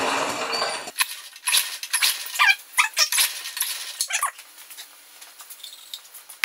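A Honda HRA214 lawn mower's recoil starter being pulled, cranking the engine without it catching; the pull ends about a second in. Then a run of sharp clicks and short squeaks from the mower's starter and controls.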